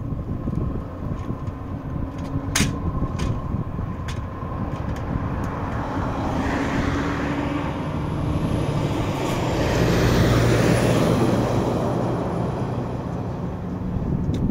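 Boeing B-52H Stratofortress on approach, its eight TF33 turbofan engines giving a deep rumble that swells to its loudest about ten seconds in, with a high engine whine above it that dips and then rises in pitch.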